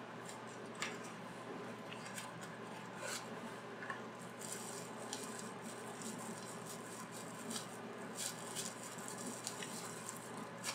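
Faint crinkling and rustling of a small plastic packet being handled, with scattered light clicks, over a steady low hum.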